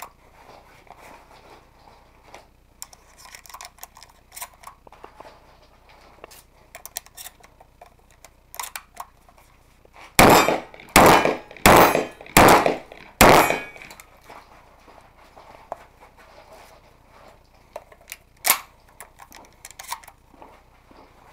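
Shotgun being loaded shell by shell with small clicks and clacks, then five shotgun shots in quick succession, about three-quarters of a second apart, then more clicking as shells are loaded again.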